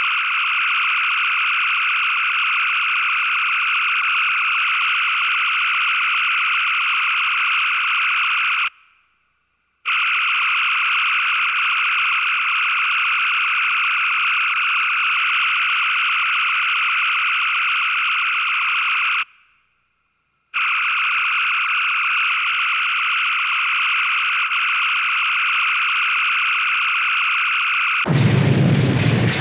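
Star Trek original series electronic sound effect: a steady, buzzy high tone that plays for about nine seconds at a time, three times over, with short silences between. Near the end a sudden loud burst with a heavy low end begins.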